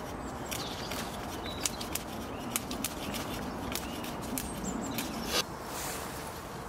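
A garden machete drawn like a drawknife along a log, scraping and shaving off bark and wood, with irregular sharp clicks as the blade catches and chips snap off.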